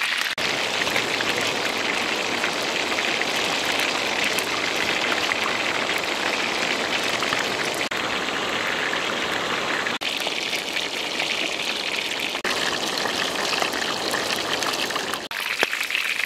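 Whole chicken frying in hot oil in a wok: a steady sizzle, broken off for an instant a few times.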